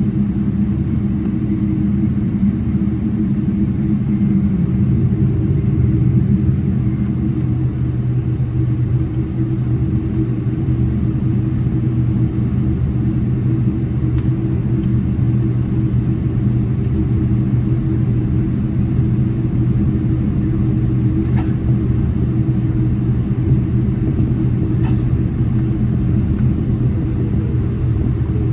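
Cabin noise inside a jet airliner taxiing: the engines at idle give a steady low drone with several humming tones, over a rumble from the ride on the taxiway.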